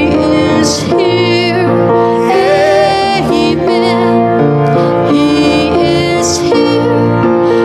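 Music with singing: held and wavering sung notes over sustained instrumental chords.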